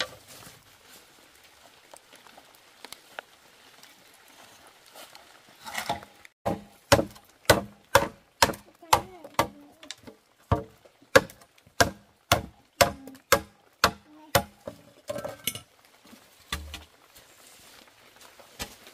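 A hand tool striking wood again and again, about two sharp blows a second. The blows start about six seconds in and stop about fifteen seconds in.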